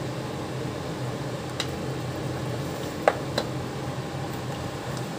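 Steady electrical hum of an induction cooktop under a steel pan. A faint tick, then two sharp knocks about three seconds in, the first the loudest, as a wooden spatula is moved against the pan.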